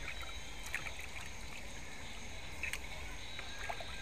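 Water sloshing in a plastic basin as raw chicken pieces are washed and turned by hand, with a few short splashes and knocks.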